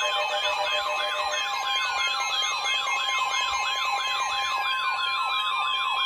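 Alert tones sounding ahead of a severe thunderstorm warning: a fast up-and-down warbling siren, about two to three cycles a second, over slower falling siren wails and a steady tone near 1 kHz, the NOAA Weather Radio warning alarm tone.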